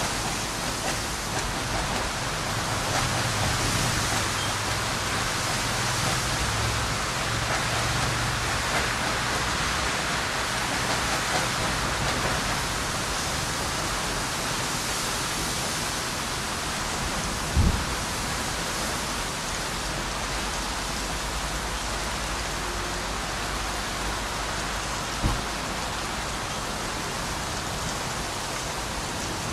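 Steady rushing hiss of a thunderstorm front, with wind and rain. There is a low rumble in the first ten seconds and two brief low thumps later on.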